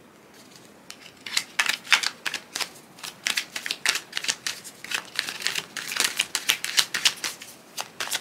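A tarot deck being shuffled by hand: a rapid, uneven run of crisp card clicks that starts about a second in.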